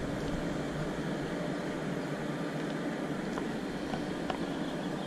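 Steady background hum of city street traffic, without a break.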